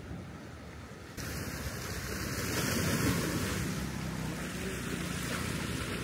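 Steady rush of wind and sea surf with wind buffeting the microphone. It jumps suddenly louder and hissier about a second in, then stays steady.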